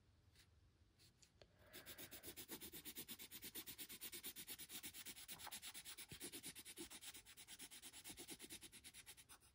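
Faint scratch of a colored pencil shading back and forth on a coloring book page, in rapid even strokes of about eight a second, starting about two seconds in.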